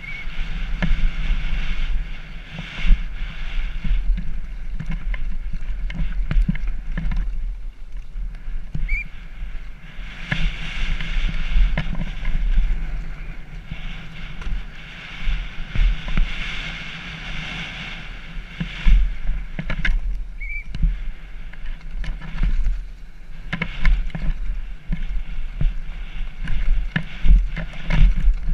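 Downhill mountain bike descent heard from a helmet camera: tyres crunching over gravel and rocks with constant rattling and knocking of the bike over bumps, wind buffeting the microphone, and a few brief high squeaks.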